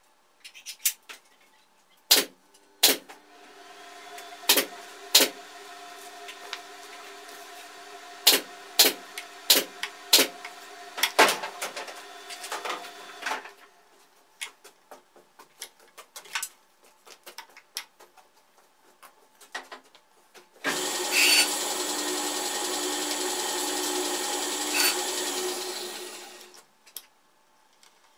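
Clicks and knocks of work on a machine throughout, with a steadier motor hum for about ten seconds early on. About two-thirds of the way in, the Metabo HC 260 planer-thicknesser's electric motor starts up loud, runs steadily for about six seconds and runs down: a test run after its worn feed-roller bushings were replaced.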